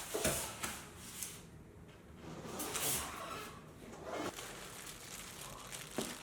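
A cardboard box and its packaging being handled and opened: rustling and scraping swells, with a few short knocks.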